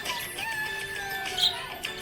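Instrumental music with a gliding melody over a steady held note, and one short high chirp about three-quarters of the way through.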